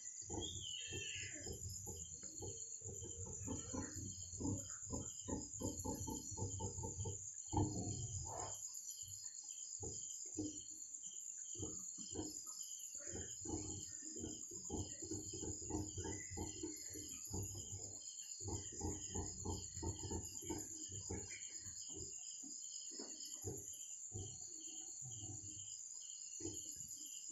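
Night chorus of crickets and other insects: a steady high-pitched trill, with a lower pulsing call repeating a few times a second. Irregular low rustles and thumps run underneath.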